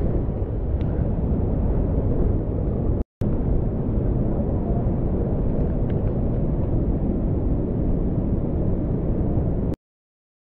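Steady rushing of a rain-swollen mountain stream in flood, pouring over boulders. It drops out for an instant about three seconds in and stops abruptly near the end.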